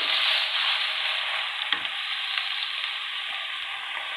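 Minced beef sizzling steadily in hot oil in a kadai, its own juices cooked off so it is now frying dry, while a wooden spatula stirs it. There is a light knock about a second and a half in.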